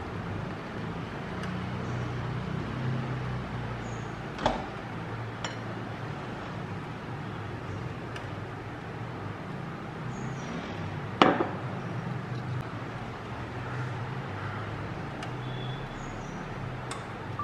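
A ceramic coffee mug knocking against a countertop a few times, once loudly about eleven seconds in, over a steady low hum of room noise.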